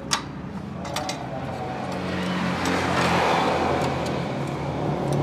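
A motor vehicle passing, swelling and fading about halfway through, over a steady low hum, with two sharp clicks in the first second.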